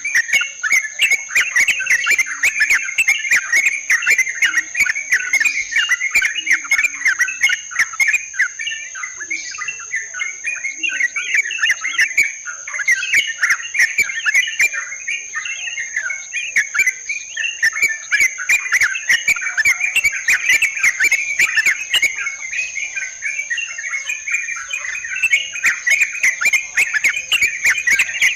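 Yellow-vented bulbuls (trucukan) giving rapid, overlapping chattering calls, the kind of call track used to lure the birds. A steady high-pitched whine runs underneath.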